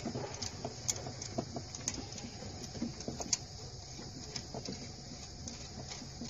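Scattered light metallic clicks and taps as a hand valve spring compressor is fitted and worked on a valve spring of a Nissan VG33E cylinder head, a few sharper clicks about one, two and three seconds in, over a low steady hum.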